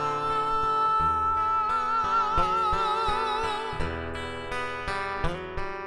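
Acoustic guitar playing a slow instrumental passage between the sung lines of a song. A held note wavers from about two seconds in and fades out near four seconds, and plucked notes follow.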